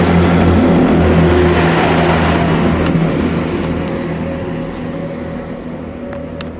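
Train running through the station without stopping: loud rumble of wheels on rail under a steady low drone, fading away from about three seconds in as it moves off.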